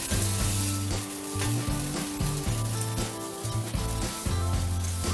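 Oat pancakes sizzling in butter in a frying pan as they are turned over with a plastic spatula. Background music with a steady bass line plays underneath.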